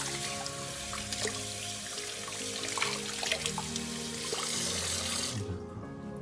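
Tap water running into a sink and splashing over a puppy as it is rinsed by hand, with a few small splashes; the flow stops about five seconds in. Background music plays underneath.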